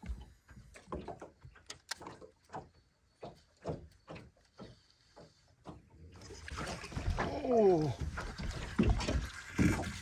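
Soft knocks of water lapping against a small boat's hull, two or three a second. From about six seconds in, a louder hiss sets in, with a brief falling whine partway through.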